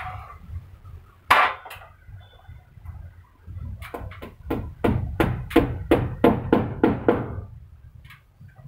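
Hammer striking a dynabolt (expansion anchor bolt) into a drilled hole in a masonry wall: one sharp blow about a second in, then a run of about ten quick strikes, roughly three a second, from about four to seven seconds in.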